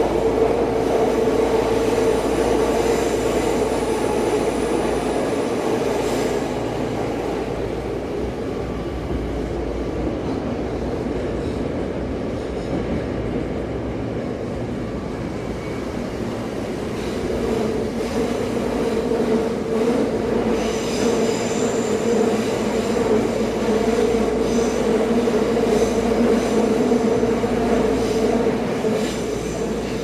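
Electric commuter train running on the rails, a steady droning hum over rolling wheel noise. It eases off for a few seconds near the middle, then builds again, with a faint high wheel squeal in the second half.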